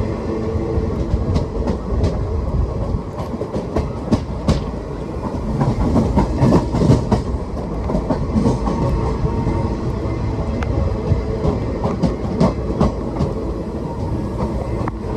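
Train running through the station at low speed: steady rumble of the wagons with wheels clicking and clanking over the rail joints and points.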